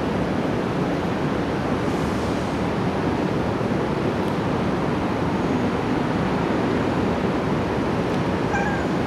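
Steady low rushing noise of wind on the microphone, with one brief short pitched call about eight and a half seconds in.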